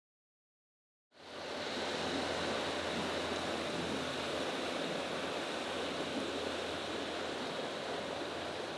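Silence for about the first second, then steady riverside outdoor ambience fades in: an even hiss with a low hum beneath it.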